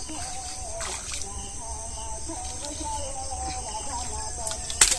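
Shallow creek water splashing and sloshing as hands work a fish trap under the surface, with a louder splash about a second in and a sharp knock near the end, over a steady high hiss.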